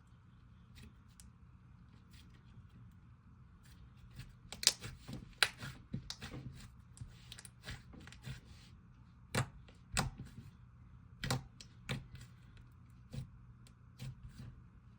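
Butter slime being squished, poked and stretched by hand: irregular soft clicks and small pops, with a handful of louder ones in the middle.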